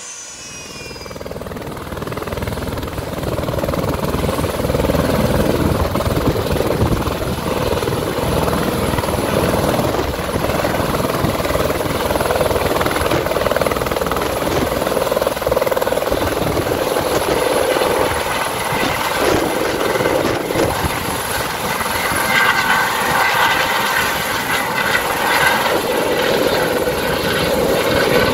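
Airbus H130 (Eurocopter EC130) helicopter hovering low, its rotor and turbine running steadily and growing louder over the first few seconds. A higher whine joins in about two-thirds of the way through as the helicopter turns side-on.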